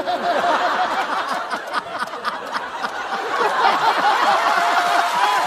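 Studio audience laughing, many voices at once, after a punchline in a comic song. A few held musical notes come in near the end.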